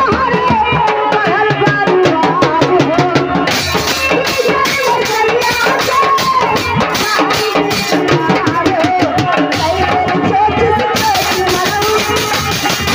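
Live, amplified Indian folk stage music: a woman singing a ghazal-style melody over steady hand-drum beats.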